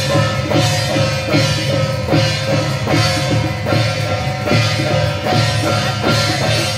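Loud procession music with a steady, quick drumbeat over held instrumental tones.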